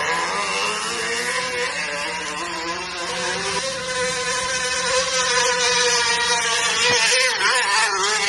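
Plastic water bottle held by an elastic band against a moving bicycle wheel's spokes, the spokes flicking it into a steady, engine-like buzz that imitates a moped. The pitch climbs a little as the bike gathers speed and wavers near the end.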